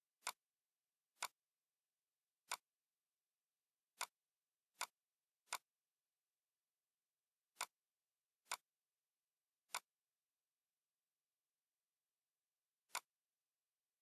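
Computer mouse button clicking: about ten sharp single clicks at uneven intervals, with near silence in between.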